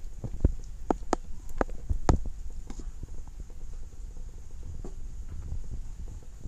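Dry rotini pasta poured from its package into a pot of broth, with about half a dozen sharp ticks and taps in the first two seconds, over a low steady rumble.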